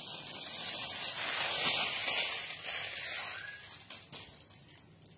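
Cloth rustling as a folded piece of printed fabric is handled and lifted. The sound is loudest in the first three seconds and fades away, with a few faint knocks near the end.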